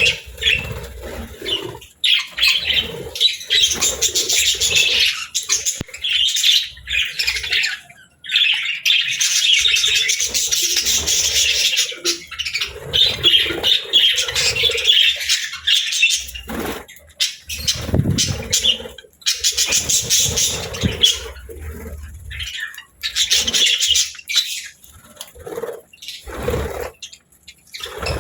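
Budgerigars chattering and warbling, a busy, continuous stream of chirps and squawks with a few short pauses.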